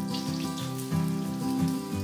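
Oil sizzling and crackling as flour-coated wheat gluten fries in a wok, under louder background music with a stepping melody.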